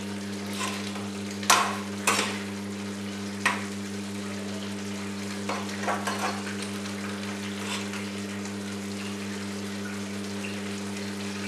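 Metal ladle stirring paneer masala gravy in a steel pan, with a few sharp clinks of the ladle against the pan, the loudest in the first four seconds, over a faint sizzle of the gravy cooking. A steady low hum runs underneath.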